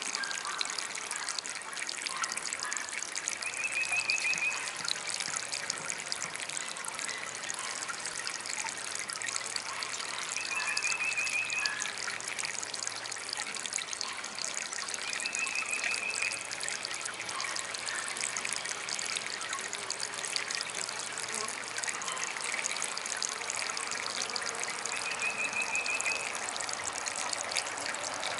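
DIY garden water fountain trickling steadily. A short high trill repeats four times, several seconds apart.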